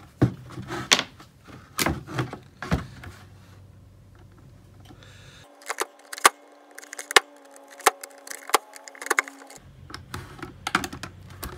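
Utility knife blade cutting through the wall of a plastic bucket: an irregular run of sharp clicks and ticks as the blade punctures and works around a small hole.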